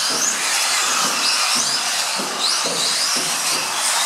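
Several small electric off-road RC buggies racing, their motors and drivetrains whining in a steady mix, with repeated rising whines as individual cars accelerate.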